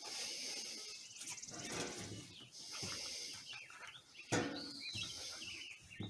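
Border Collie puppies play-fighting on a wooden deck: irregular scuffling, mouthing and breathing sounds, with a sudden louder scuff about four seconds in.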